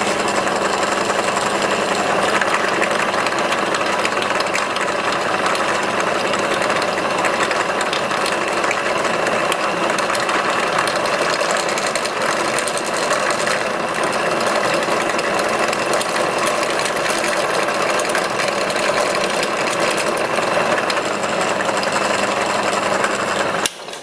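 A cheap drill press's motor running steadily while its bit drills a hole through a small wooden ball. It cuts off abruptly near the end.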